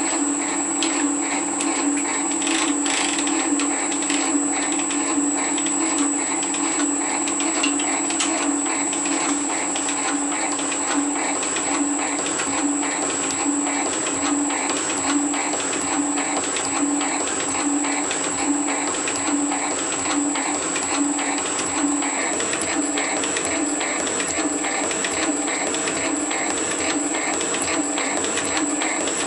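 Metal shaper taking a heavy roughing cut, 30 thou deep with 10 thou step-overs, across a metal block in a vise: the machine's steady hum and whine with a regular beat at each stroke of the ram.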